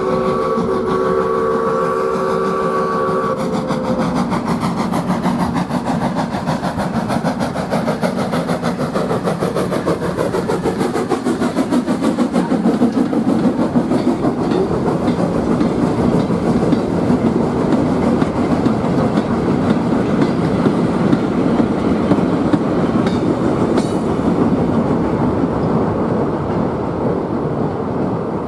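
Steam locomotive whistle sounding a steady multi-note chord for the first three seconds or so, then the locomotive running past hauling a goods train of hopper and tank wagons, with a continuous clatter of wheels over the rail joints that eases slightly near the end.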